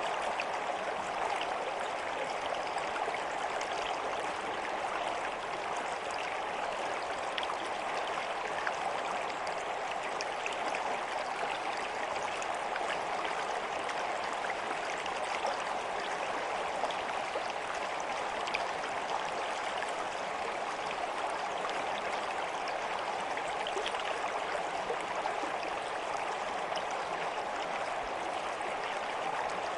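A stream of water running steadily, with small splashes and trickles throughout.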